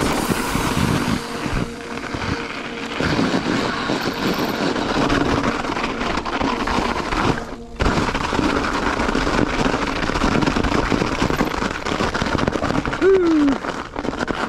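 Ibis Ripmo V2 mountain bike riding down a snowy trail: steady tyre noise through the snow with constant rattling and knocking of the bike over bumps. A brief dropout comes about eight seconds in, and a short falling squeak near the end.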